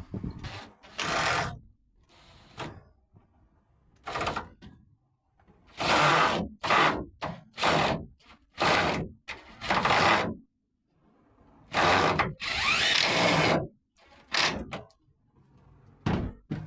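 Van shelving rack being shifted and set in place inside a van: a series of knocks, thuds and scrapes, about a dozen short bursts with a longer scrape near the end.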